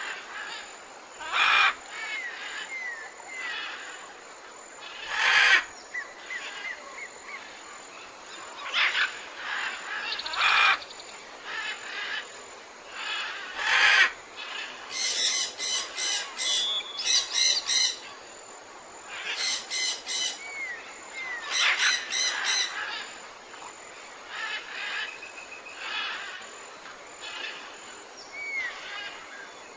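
A chorus of tropical forest birds calling. Loud, harsh calls come every few seconds, and two bursts of rapid repeated notes fall around the middle. Short slurred whistles come and go in between.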